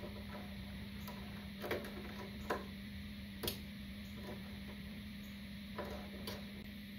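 Scattered light metal clicks, about five in all, as the centerstand pivot bolt is spun out of its bushing by hand and drawn out. A steady low hum runs underneath.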